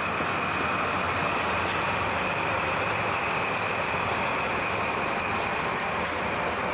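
Two JNR DD51 diesel-hydraulic locomotives hauling a freight train pass close under power, their engines' steady drone giving way to the rumble of container flatcars rolling by on the rails.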